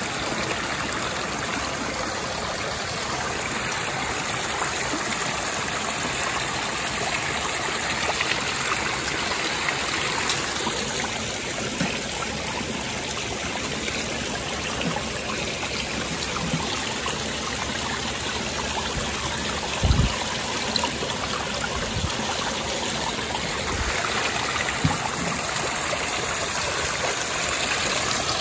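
Stream water flowing and trickling over rocks, a steady rushing noise, with a few low thumps about two-thirds of the way in.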